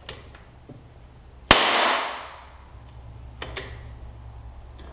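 A primer in a primed empty pistol case fired by a barrel test fixture: one sharp pop about a second and a half in, ringing off over about half a second. A few small metallic clicks come from the fixture's firing mechanism before and after.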